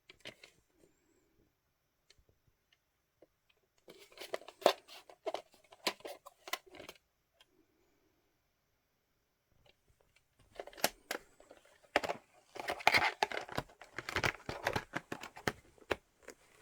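Hands handling a VHS videocassette and its plastic case: clusters of clicks, taps and plastic rustling, one short spell about four seconds in and a longer, busier one from about ten seconds on.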